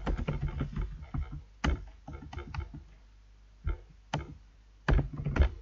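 Typing on a computer keyboard: a quick run of key clicks, then a few spaced, louder clicks near the end.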